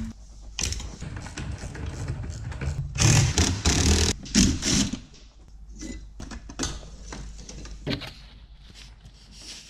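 DeWalt cordless driver running in bursts as it undoes bolts, loudest a few seconds in, followed by scattered light clicks of metal parts.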